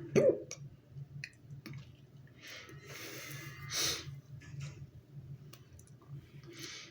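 A person hiccuping: one sudden, loud voiced 'hic' just after the start, followed by audible breathing in and out.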